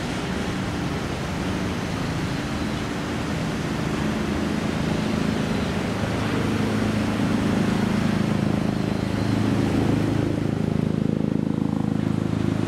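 A training ship's engine running with a steady low hum under a constant rushing noise; the hum grows louder about halfway through.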